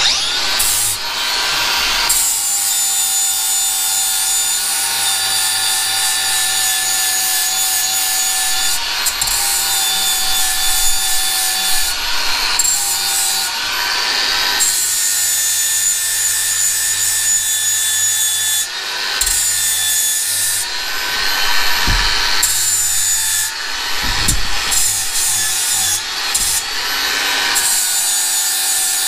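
Makita angle grinder running and grinding down the broken metal shaft of a Hobart industrial mixer, to prepare it for welding. The grinder's steady whine shifts in pitch and dips several times as the disc works the metal.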